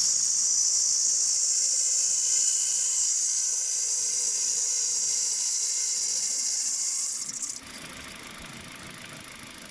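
Kia Rio's worn poly-V drive belt giving a steady high-pitched whistle over the idling engine; it stops suddenly about seven and a half seconds in, leaving the engine idling. The squeal is the belt itself slipping, not the tensioner or A/C compressor clutch bearings.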